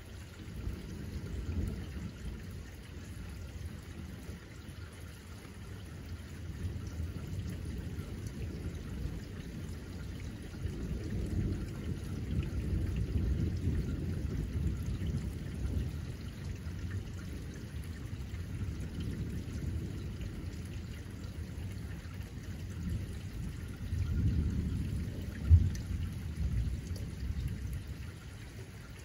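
Rain falling steadily while low thunder rumbles, swelling about a third of the way in and again near the end. A single sharp thump comes near the end.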